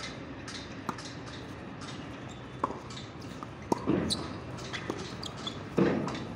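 Tennis balls struck by rackets during a doubles rally: a serve about a second in, then a string of sharp pops, one every second or two, the loudest hits coming close by in the second half.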